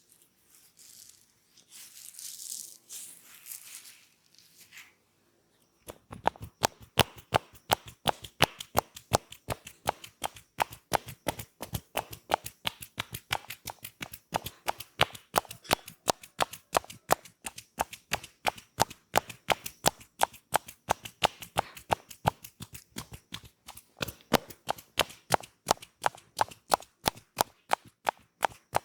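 Soft rubbing and rustling, then about six seconds in a fast, steady run of sharp slaps, several a second: massage tapping, hands striking the head and shoulders.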